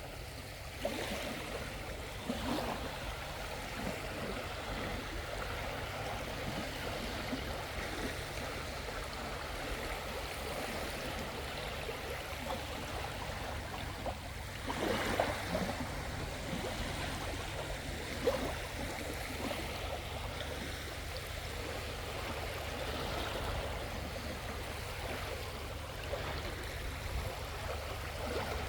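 Sea water washing on the shore: a steady wash with a few brief louder splashes, the biggest about halfway through.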